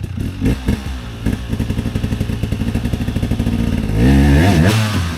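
Dirt bike engine running at low revs with a fast, uneven pulse and a few knocks in the first second or so, then revved up and let back down about four seconds in.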